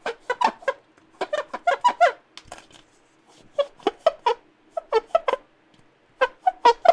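Squeaky rubbing of the kind made when wiping a surface clean: short, high squeaks in quick runs of two to five, with brief pauses between runs.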